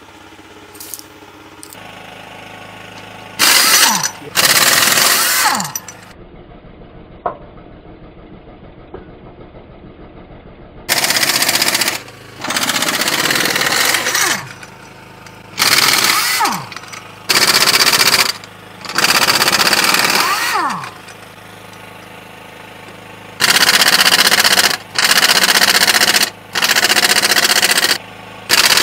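Pneumatic impact wrench hammering on the lug nuts of a tractor wheel's rim, in about eleven bursts of one to two seconds each with short pauses between, several ending as the tool spins down.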